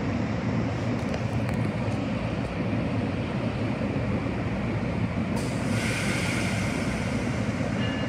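NJ Transit multilevel commuter train standing at the platform with a steady, low rumble and hum of its running equipment; a hiss joins about five seconds in, just before it pulls out.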